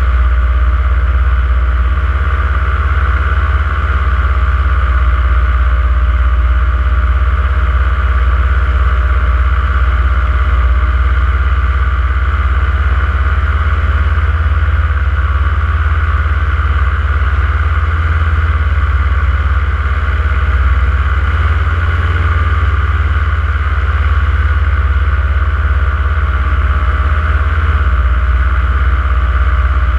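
Powered paraglider's engine and propeller running steadily in flight, a constant drone with a deep rumble underneath.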